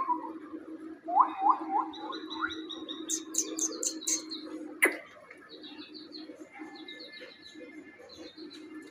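Small birds chirping in rows of quick, repeated high notes, with a few short rising squeaks about a second in and a single sharp click just before the middle.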